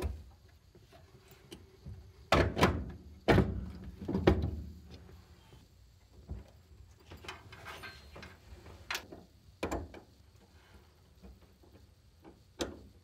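Metal parts of a car's brake pedal assembly and master cylinders knocked and handled by hand under the dashboard: three loud clunks about a second apart, then quieter clicks and rustling, with two sharper clicks near the end.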